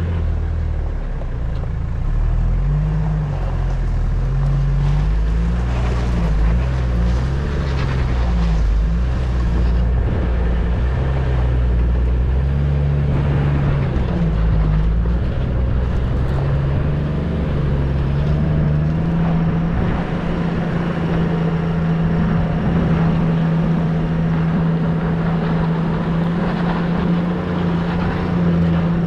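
Toyota LandCruiser Troop Carrier's engine running as it drives along a dirt track. The engine note rises and falls, then holds steady for the last third.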